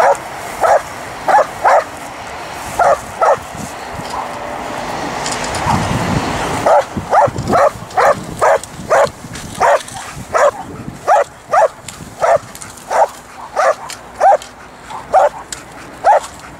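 Belgian Malinois barking in short, sharp repeated barks, about two a second, while held at the handler's side on command in protection training. The barks pause for about three seconds near the middle, where a low rushing noise swells and fades, then resume.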